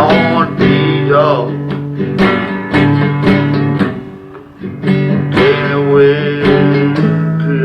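Blues played on acoustic guitar: strummed chords with some pitch-bending notes, the playing thinning out briefly about four seconds in.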